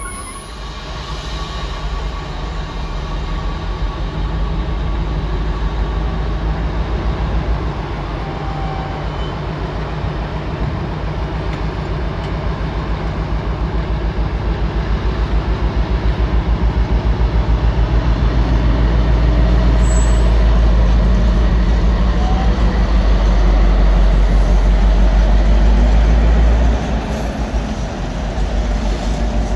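DB Class 60 diesel locomotive's eight-cylinder Mirrlees engine running as it hauls a train of wagons slowly past, a deep pulsing rumble that grows louder over the first twenty seconds. It drops back sharply near the end.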